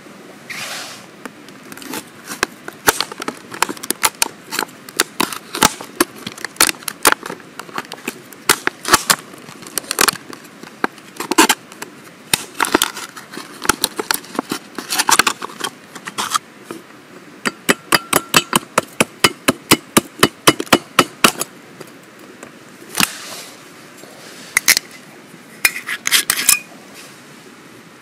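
Sharp clicks, knocks and clinks of ice being hacked out of a frozen plastic water bottle with a knife and dropped into a metal mug, with quick runs of strikes through the middle.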